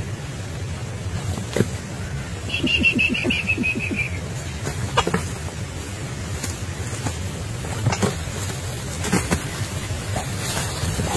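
Wind buffeting the microphone in a steady low rumble, with scattered clicks and knocks and a brief high pulsing sound about two and a half seconds in.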